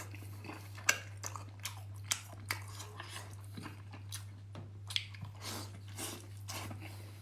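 A person chewing food close to the microphone: irregular mouth clicks and smacks, the sharpest about a second in, around two and a half seconds and near five seconds, over a steady low hum.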